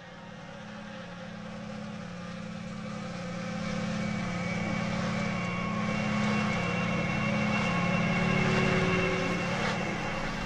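A low droning tone that pulses about once a second and swells steadily louder, with fainter high sustained tones above it: ominous sound-design drone in a film score.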